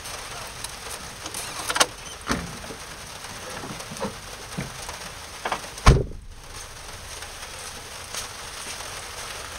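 Honda S2000's four-cylinder engine running, heard close up under the hood as a steady clattering hiss with scattered sharp ticks and one heavy thump about six seconds in. This is the engine noise being checked while the engine is loaded in first gear against the clutch.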